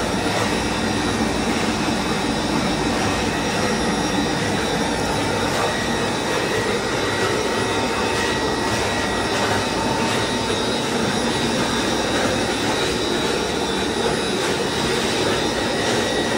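High-speed homogenizer mixer for liquid soap running steadily under power: an electric motor's constant whine over an even rushing noise.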